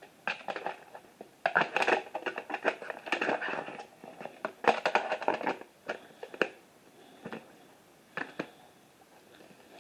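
Handling noise from a plastic VHS case and cassette being turned over and moved about by hand: bursts of rustling and scraping with clicks over the first six or so seconds, then a few scattered clicks.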